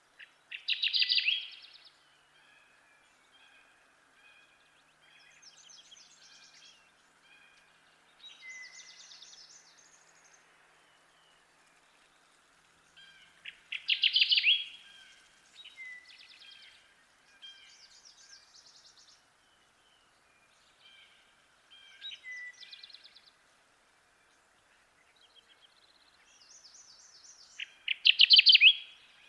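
Kirtland's warbler singing its short, loud song three times, about every thirteen seconds. Fainter bird songs and chirps fill the gaps between.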